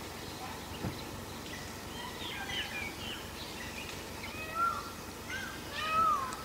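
Forest birds chirping and calling over a steady outdoor background hiss, with two louder arching calls, one past the middle and one near the end, and a soft knock about a second in.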